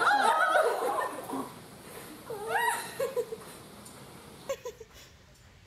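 Women's high-pitched squeals and shrieks mixed with laughter, in fright at a live octopus. There are three bursts: a loud one at the start, another about two and a half seconds in, and a short faint one near the end.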